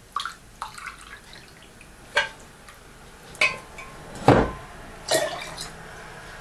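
Glass jar and glass measuring cup clinking and knocking together while liquid is poured from the jar into the cup, with a faint trickle of pouring liquid. The heaviest knock, a dull thud, comes about four seconds in.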